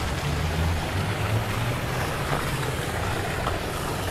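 Wind buffeting the microphone: an uneven low rumble over a steady rushing hiss.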